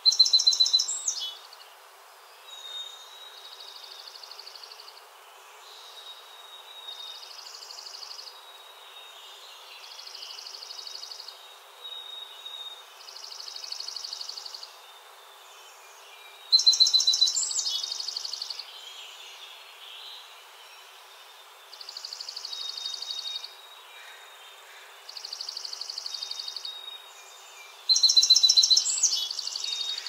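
A small streaked songbird singing: three loud, fast trilled phrases of about a second and a half each, near the start, about 16 seconds in and near the end. Softer, shorter trills repeat every two to three seconds in between.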